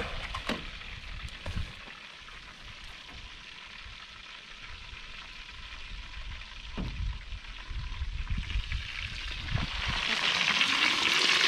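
Squid deep-frying in hot oil in a pot on a portable gas camp stove: a steady sizzling hiss that grows clearly louder over the last few seconds.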